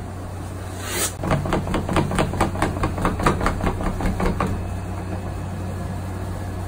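Boxing gloves hitting a Maxxmma two-way desktop punching ball on its spring stand in a fast flurry of about five or six punches a second. The flurry starts about a second in and stops after about three and a half seconds, over a steady low hum.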